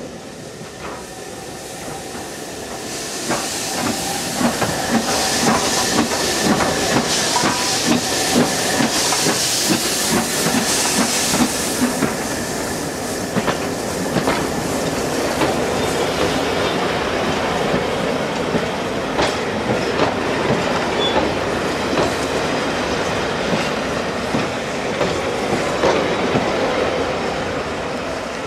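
Steam-hauled train passing close by: GNR N2 class 0-6-2 tank engine No. 1744 comes by bunker first with a hiss from about 3 s in, then its coaches roll past with the wheels clacking over the rail joints in a regular beat.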